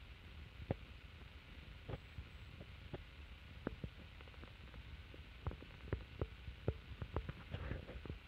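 Soft irregular knocks and clicks over a low steady rumble, coming more often in the last few seconds: phone-handling noise and footsteps on carpet.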